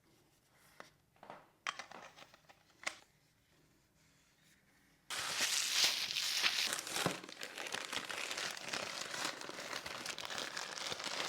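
A few light handling clicks and taps, then, about five seconds in, packaging being unwrapped: continuous crinkling and rustling with some tearing.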